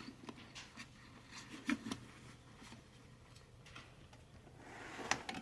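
Tools and a canvas tool bag being handled: scattered faint clicks and light rustling, with a short rustle building to a couple of sharp clicks near the end.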